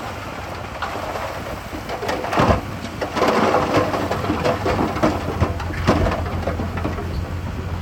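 Heavy machinery at work: a diesel engine running under a rumbling clatter of irregular knocks and impacts, loudest in the middle, like rock and earth being moved or dumped.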